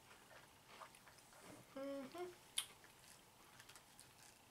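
Near silence: quiet room tone, broken by a brief hum-like voice sound about two seconds in and a single sharp click just after.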